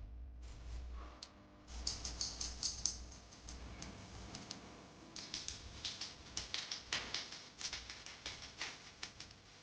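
A run of irregular light clicks and ticks, thickest from about two seconds in.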